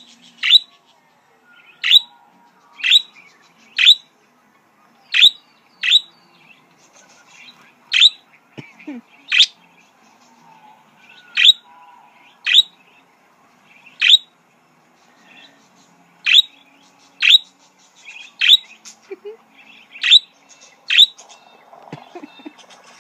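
Budgerigar giving loud, sharp contact calls, each a quick chirp dropping in pitch, about one a second, with fainter chatter between.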